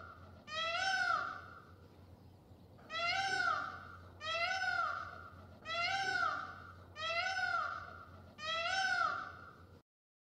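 Kitten meowing repeatedly: six short, high meows that rise and fall, a little over a second apart. The sound then cuts off suddenly near the end.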